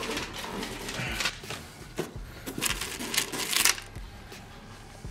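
Plastic and metal parts of a Vendstar 3000 candy vending machine clattering as it is handled, with a dense burst of rattling about two and a half seconds in.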